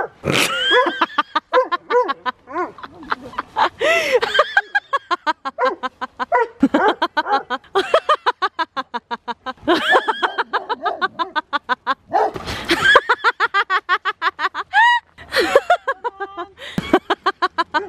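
A woman laughing hard and almost without a break: rapid, high-pitched, pulsing laughter, broken every few seconds by short noisy gasps for breath.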